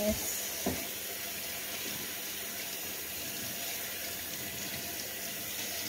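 Kitchen tap running into a stainless steel sink as pork fillet is rinsed by hand under the stream, a steady splashing with one light knock under a second in.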